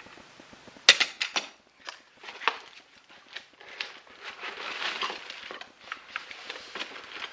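Hard plastic parts and packaging being handled: a quick run of sharp clicks about a second in, then scattered knocks and rustling.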